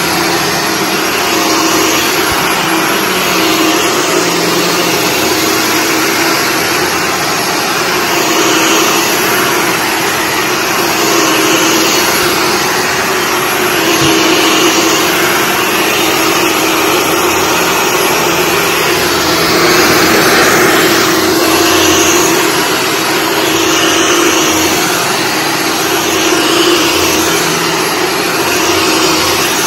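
Shark Stratos corded upright vacuum cleaner running on carpet: a steady motor hum and rush of suction with brushroll noise, swelling and easing slightly as it is pushed back and forth.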